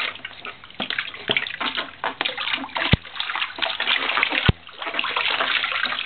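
Bathwater splashing and sloshing irregularly around a baby in a small bathtub. Two sharp clicks stand out, about three seconds in and again a second and a half later.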